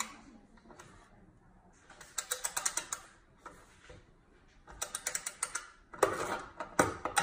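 Ratcheting box-end wrench clicking as it is swung back on a nut: short runs of quick pawl clicks, each stroke's run a little over half a second long and about two seconds apart, louder near the end.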